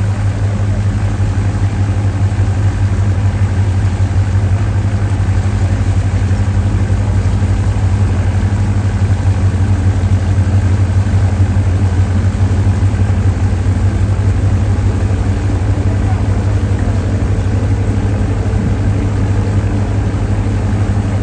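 Fishing boat's diesel engine idling, a steady, even low drone.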